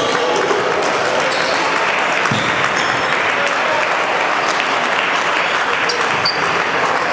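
Busy table tennis hall: celluloid-type balls clicking off bats and tables at many tables at once, over a steady dense hiss of hall noise and voices.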